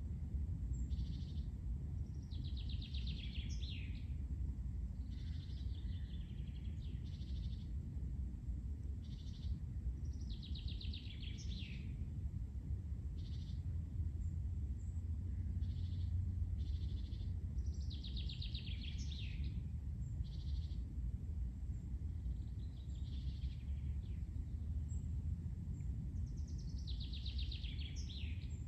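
Songbirds singing in a summer forest: a fast trilled phrase that slides downward comes back every six to eight seconds, with short single notes between. A steady low rumble runs underneath.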